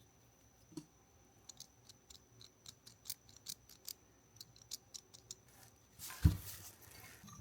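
Light metal clicks and ticks of hand tools working on small carburettor parts, a dozen or so irregular taps, then a single thump a little past six seconds in, followed by about a second of hiss.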